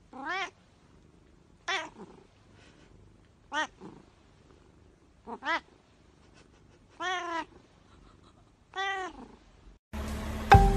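A black-and-white cat meowing six times, short calls spaced a little under two seconds apart. Music cuts in near the end.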